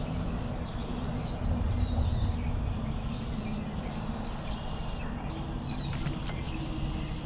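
Open-air ambience on the water: a steady low rumble of wind, with a few faint, short, falling bird chirps and a couple of faint clicks near the end.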